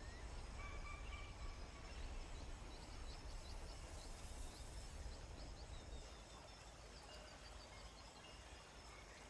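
Quiet natural ambience: faint bird calls over a low steady rumble. There is a short whistled call about a second in and a run of quick chirps in the middle.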